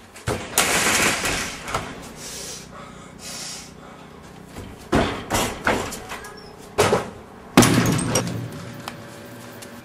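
A run of knocks and thuds: a screen door banging near the start, then quick footfalls on wooden deck boards and a heavier thud about three-quarters of the way through.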